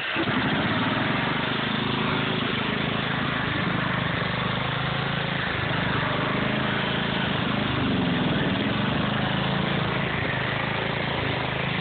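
Husqvarna riding lawn mower's engine catching on the key and then running steadily.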